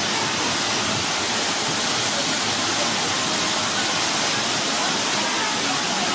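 Steady rush of falling water, even and unbroken.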